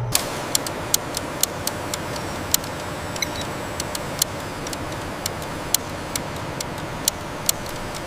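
Production-line machinery running with a steady rushing noise, and sharp irregular clicks about two a second throughout.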